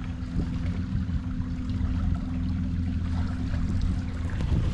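Electric trolling motor running steadily, pushing a small skiff, a low even hum with water noise over it.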